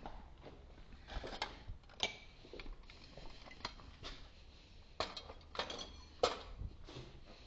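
Scattered light metal clinks and knocks of tools and parts being handled at a manual milling machine, with a sharper click about five seconds in and the loudest about six and a quarter seconds in.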